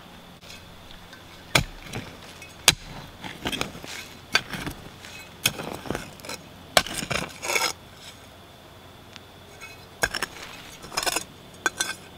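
Hand digging tool chopping and scraping into dump soil full of old glass and metal debris: sharp clinks at irregular intervals, with bursts of scraping around the middle and near the end.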